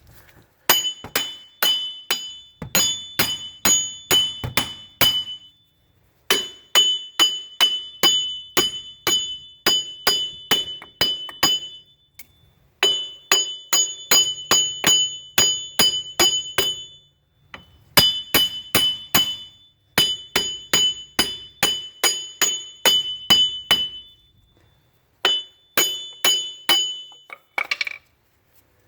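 Hammer blows on a 2002 Buick LeSabre's front hub bearing assembly, metal on metal with a ringing clink, in runs of about two to three blows a second broken by short pauses. The hub is seized in the knuckle by corrosion and is being knocked loose.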